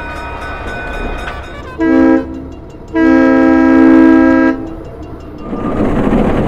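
Diesel switcher locomotive's air horn sounding a multi-note chord: a short blast about two seconds in, then a longer blast of about a second and a half. A broad, louder noise builds near the end.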